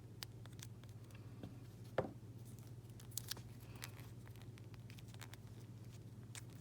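Small clicks and handling sounds of Ethernet cable wires being trimmed with a cutter, with one sharper snip about two seconds in, over a steady low hum.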